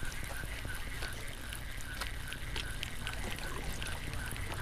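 Spinning reel being cranked to retrieve line with a small hooked fish on, ticking evenly about three times a second as the handle turns, over a low steady rumble.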